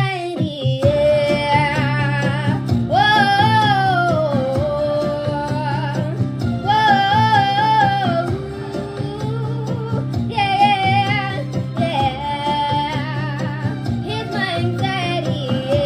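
A woman singing a melody with long held notes, wavering vibrato and sliding pitch, over backing music with a steady low bass.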